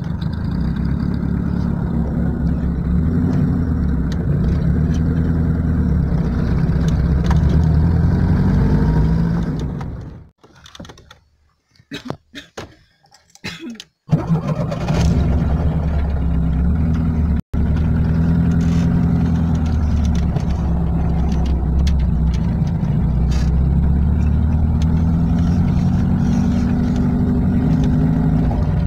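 Car engine running while driving, heard from inside the cabin, its note climbing in stretches as the car gathers speed. The sound breaks off for about four seconds around ten seconds in, then comes back abruptly.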